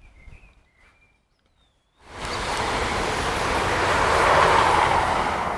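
A few short bird chirps, then a train passing close by: a loud rushing rumble that starts abruptly about two seconds in, swells and begins to fade near the end.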